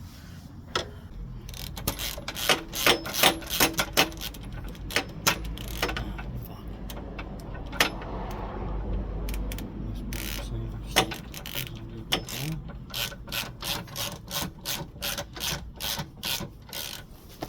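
Metallic ratchet-like clicking and clanking, a cluster of sharp clicks early on, a low rumble around the middle, then a run of about two to three clicks a second near the end: quite the racket, made while a safety pin was still left in.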